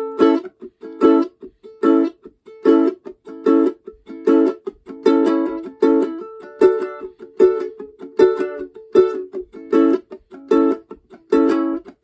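Ukulele played solo, fretted high up the neck: short chords struck at an even pace, about one every 0.8 seconds, in a repeating riff.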